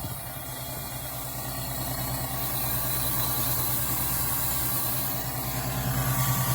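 California Air Tools oil-free air compressor running steadily, a low hum that grows gradually louder.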